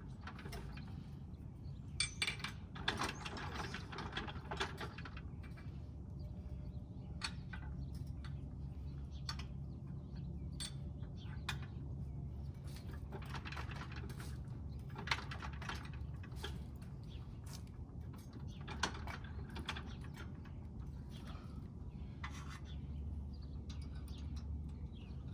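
Scattered metal clicks and clanks of the Z-Rator aerator attachment's steel frame being shifted and worked into line with the mower's mounting holes, heaviest a couple of seconds in, over a steady low hum.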